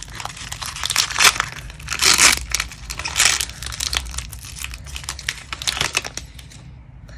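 Foil Pokémon TCG booster pack (Sun and Moon Crimson Invasion) being torn open and crinkled by hand, with two longer tearing rips about two and three seconds in; the crinkling tapers off near the end.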